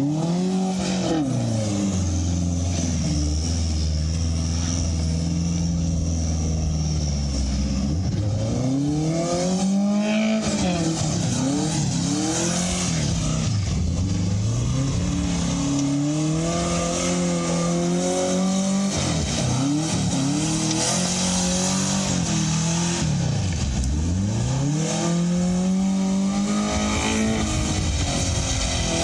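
Subaru-based 'truckaru' engine revving up and dropping back over and over as it is driven in donuts on its welded rear differential.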